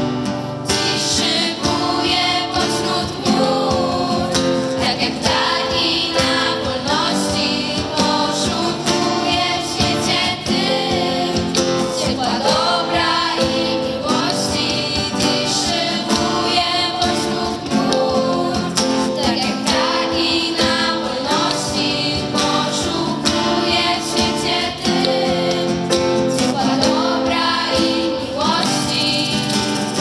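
A girls' vocal group singing a song together, accompanied by an electronic keyboard and guitar.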